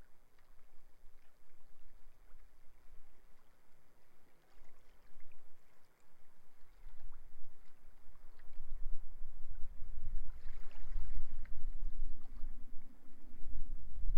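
Sea waves washing on the shore, overlaid by strong wind buffeting the microphone. The wind rumble grows louder about halfway through.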